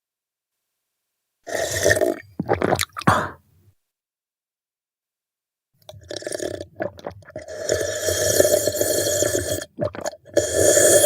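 A man drinking milk from a glass: a short run of a few gulps and swallows, then after a pause of a couple of seconds a longer run of steady gulping that stops at the very end.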